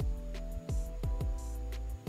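Background music with a steady beat of low drum thumps under held tones.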